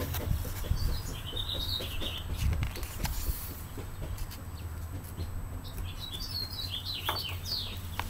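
Small birds chirping in two short spells, with the rustle of a picture book's pages being turned.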